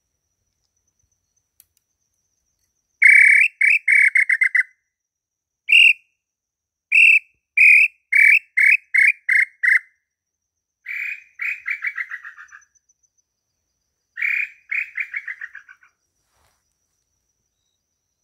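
Pio garganta call whistling the 'chorão' of the inhambu pé-roxo (tataupa tinamou): runs of short whistled notes. One run is a slower string of single notes speeding up; two later runs fall in pitch and fade out.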